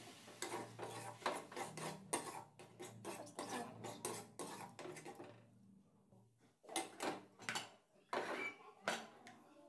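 Metal spatula scraping and knocking against an aluminium kadhai while stirring and mashing a thick green-pea filling. There is a quick, dense run of scrapes and clatters for about five seconds, then a few separate knocks near the end.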